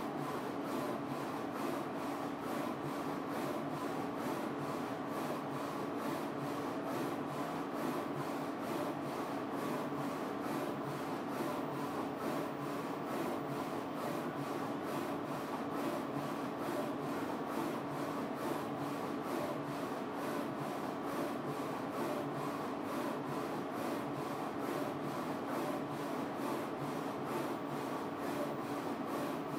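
Focus Alpha-Jet A2 UV flatbed printer running a print on a mug in its rotary jig: a steady mechanical whir of the carriage and motors, with a low hum and a fainter higher whine.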